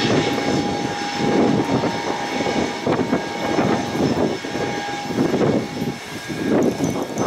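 Ilyushin Il-76's four Soloviev D-30KP turbofan engines running at taxi power: a steady high whine over an uneven, surging rumble.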